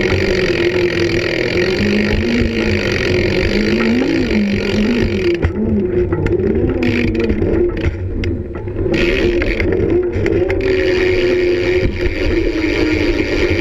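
Wheels rolling fast over concrete with a loud rushing noise and a hum that rises and falls as the rider's speed changes through the bowl. The high hiss thins out for a few seconds mid-way, then returns.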